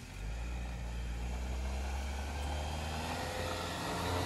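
Jeep Wrangler engine running at low speed as it crawls up a snowy dirt trail, a steady low hum that grows a little louder near the end as the vehicle comes closer.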